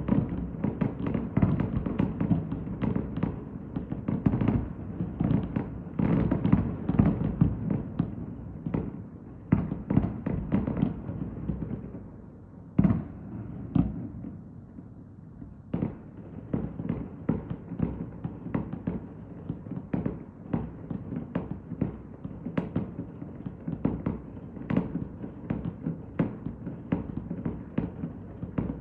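Fireworks display: a dense run of rapid deep booms and bangs, thinning out about halfway through with one sharp bang, then picking up again.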